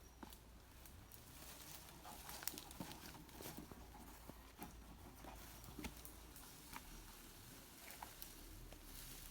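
Near silence, with faint, scattered small clicks and rustles.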